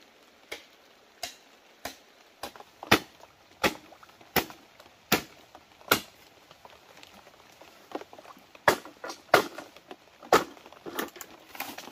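Footsteps through forest undergrowth: a series of sharp crunches and snaps in leaf litter and twigs, at about walking pace (one every three quarters of a second), turning more irregular and bunched near the end.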